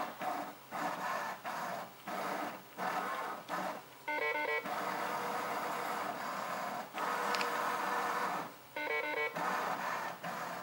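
Fidelity Chesster Phantom chess computer's motorised magnet carriage running under the board as it slides a piece, in several runs with short pauses. Three short sequences of electronic beeps cut in, about four seconds in, near nine seconds and near the end.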